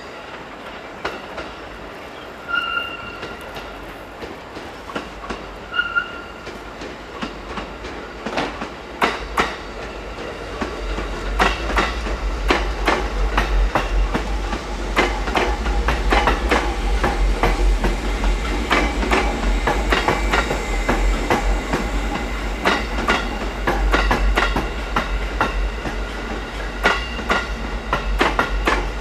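A JR 205-series electric commuter train passing close by. Its wheels click sharply over rail joints and points, over a deep rumble that builds about ten seconds in and stays. Two brief high squeals come before the clicking starts, about two and a half and six seconds in.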